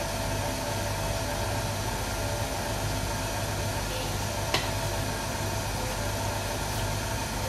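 KitchenAid stand mixer motor running steadily, driving its meat grinder attachment as it pushes sausage mass into a pig casing. A single sharp click about four and a half seconds in.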